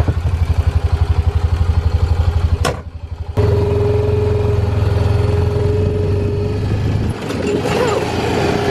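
Side-by-side utility vehicle's engine running as it drives, with a fast pulsing beat at first. The sound drops away briefly about three seconds in, then comes back steadier with a steady whine over the engine.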